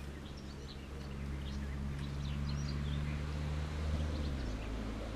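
Small birds chirping in short high calls over a steady low mechanical drone, like a distant engine, which drops in pitch near the end.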